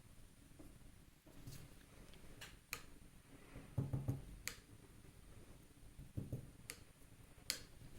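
A few sharp, light clicks and taps, with soft low knocks about four and six seconds in: a paintbrush and painting things being handled on a tabletop.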